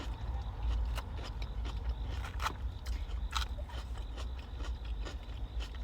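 Close-up chewing of crunchy cucumber salad, with scattered sharp crunching clicks over a steady low rumble.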